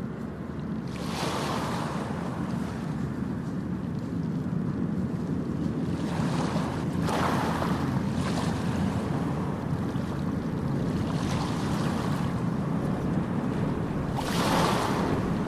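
Ocean surf on a beach: waves breaking and washing in every few seconds, each one a brighter rush over a steady low rumble of surf and wind.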